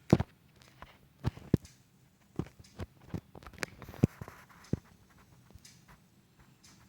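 Computer mouse clicking: about ten short, sharp clicks at irregular intervals, thinning out after about five seconds.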